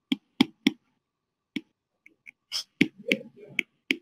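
Irregular sharp taps and clicks of a stylus on a tablet screen as an expression is handwritten, about ten in all, with some soft rubbing in between.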